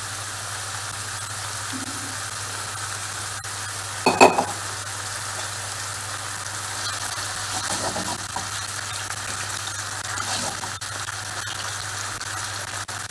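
Cubed potatoes sizzling steadily as they fry in oil in a non-stick pan, being cooked until soft and lightly golden. A brief clatter comes about four seconds in, and a utensil stirs the potatoes near the end.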